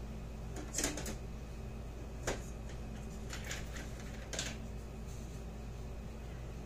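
Off-camera clatter of someone rummaging through parts bins: a handful of scattered clicks and knocks over a steady low hum.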